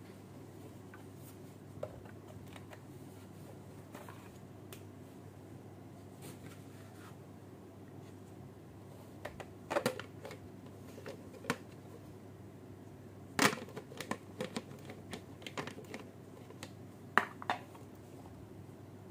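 Scattered plastic clicks and knocks from handling a toy bazooka bubble gun and its packaging, over a steady low hum. The sharpest clicks come in small clusters about halfway through and again near the end.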